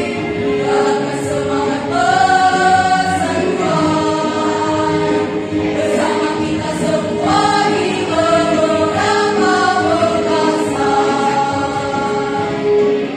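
Women's choir singing a melody together, with one steady note held beneath the moving tune.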